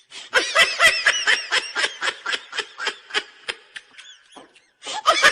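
High-pitched, breathless laughter in rapid bursts that slow down over a few seconds, then a fresh burst of laughing near the end.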